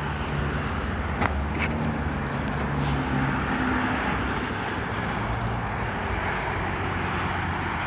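Steady low rumble of a motor vehicle with an even background hiss, and two light clicks a little over a second in.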